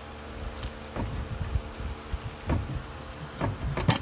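A pry tool knocks and scrapes at the edge of a car's steel oil pan, working it loose from its gasket-maker seal. There are a few sharp clanks, the loudest near the end.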